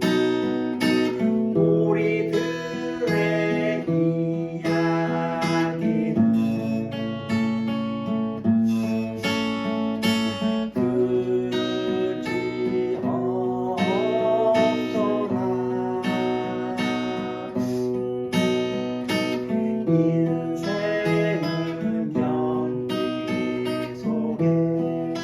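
Steel-string acoustic guitar played as an instrumental, picking out a melody over chords, with strummed and plucked notes ringing on.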